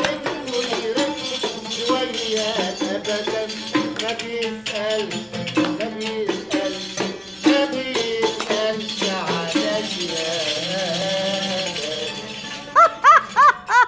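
Live Arabic music: an oud playing a melody, with a riq (small jingled tambourine) and hand clapping keeping the beat. Near the end a voice breaks in with loud, drawn-out exclamations.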